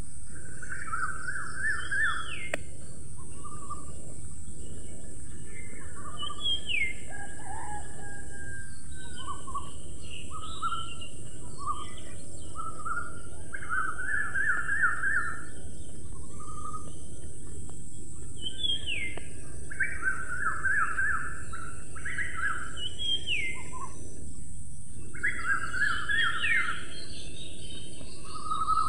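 Wild birds calling: short phrases of rapid chirps and quick rising whistles, repeated every few seconds, over a steady high-pitched hiss.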